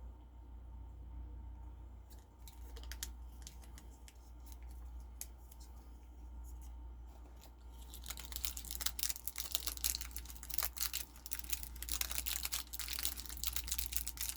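Paper candy wrapper being handled and unwrapped: a few light clicks at first, then dense crinkling from about halfway through.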